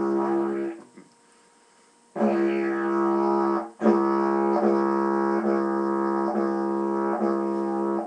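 Didgeridoo drone played with the 'kangaroo hop' technique: the tongue flicks against the lips to break the drone for a split second, giving regular short pauses a little more than once a second that imitate a kangaroo hopping. The drone first sounds briefly, stops about a second in, then starts again about two seconds in.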